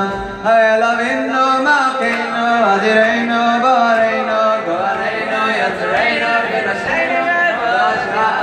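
A man singing a slow, flowing melody into a microphone, amplified through a PA.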